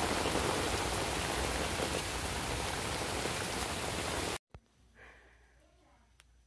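Steady rain falling on a paved pool deck and pool, an even hiss that cuts off suddenly about four seconds in, leaving quiet room tone.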